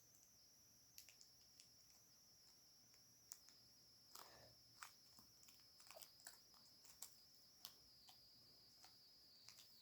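Near silence: a few faint clicks and light rustles from a small slime package being handled, over a steady high-pitched whine.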